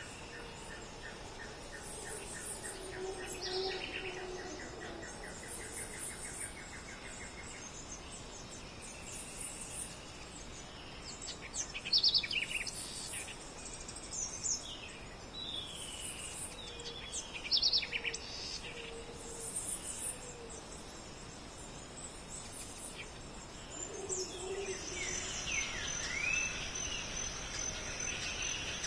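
Wild birds calling, several different chirps and whistles scattered through, over insects giving short high bursts about every two seconds. A fast, even trill runs through the first several seconds, and a steady high insect whine sets in near the end.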